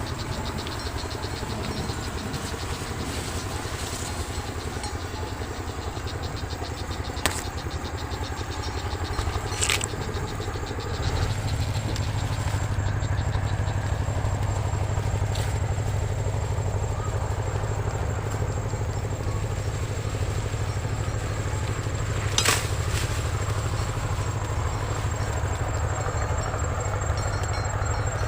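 A small engine running steadily, getting louder about eleven seconds in, with a few sharp clicks.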